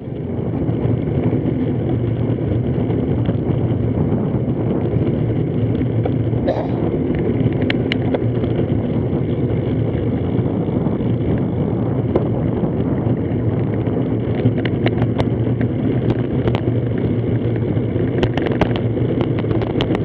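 Steady wind rush over a bike-mounted action camera's microphone and tyre noise on asphalt while a road bicycle rides along at speed, with scattered sharp clicks, more often near the end.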